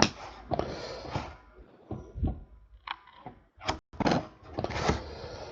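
Topps Chrome baseball cards handled and slid against one another by hand as they are sorted: a string of short, irregular scrapes and clicks.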